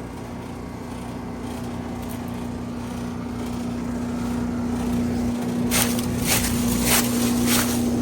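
A motor runs with a steady hum that slowly grows louder, and about four short hisses sound in the last two seconds.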